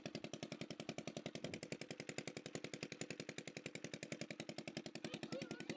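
A small engine running steadily with a rapid, even chugging of about twelve beats a second.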